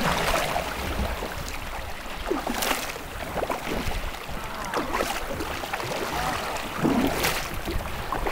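Water splashing and slapping against a sea kayak's bow as it is paddled through choppy water, with a splash surge every two to two and a half seconds, over a low rumble of wind on the microphone.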